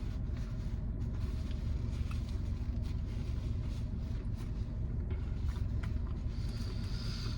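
Steady low rumble of a car engine idling, heard from inside the car's cabin, with a few faint small clicks over it.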